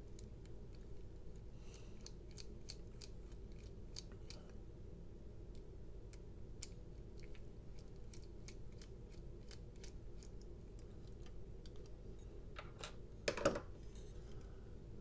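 Light clicks and ticks of a small screwdriver bit turning the screws of a folding knife with micarta handle scales, over a low steady room hum, with one louder clack near the end.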